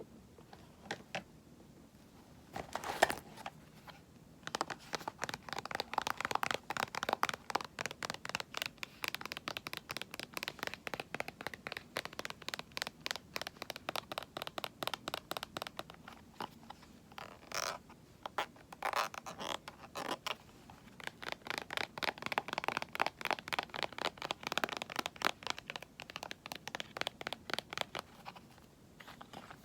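Quick, even scratching or tapping strokes on a cosmetic item, about four or five a second, stopping briefly about halfway through and then going on.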